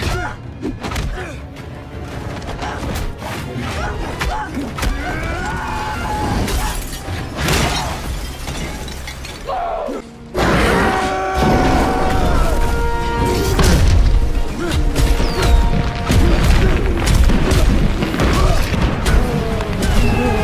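Dramatic score music over fight sound effects: heavy thuds, booms and shattering impacts. It drops off briefly about ten seconds in, then returns louder.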